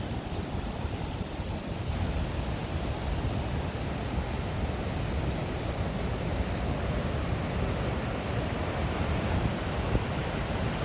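Steady rushing roar of a waterfall, an even wash of water noise with a heavy low rumble.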